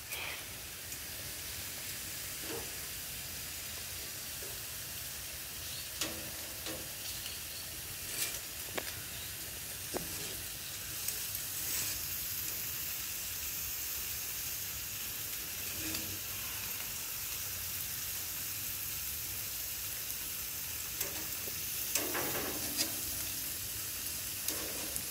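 Bacon sizzling steadily on a barbecue, with occasional sharp pops.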